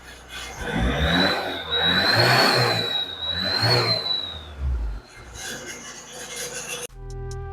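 Exhaust whistle tip on a Mahindra Scorpio, test-fitted, giving a high whistle as the engine is revved; the tone rises slightly with the revs and fades out after about four seconds. Music starts near the end.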